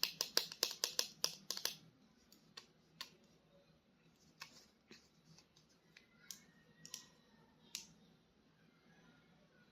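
Quick run of sharp clicks, about five or six a second, stopping about two seconds in, then a handful of scattered single clicks and taps: handling of a toy figure and its packaging.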